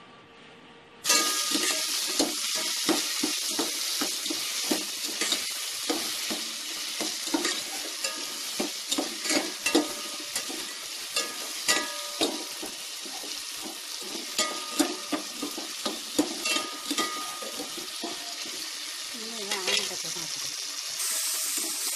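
Tomatoes, shallots and garlic sizzling steadily as they fry in oil in a stainless steel pot, sautéing down with salt, while a metal ladle stirs them with frequent scrapes and clicks against the pot. The sizzling starts about a second in and stops shortly before the end.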